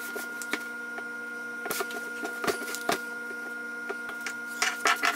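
Scattered light clicks and scrapes of a plastic ruler and marker being handled and drawn across fabric on a wooden tabletop, growing denser near the end, over a steady faint hum.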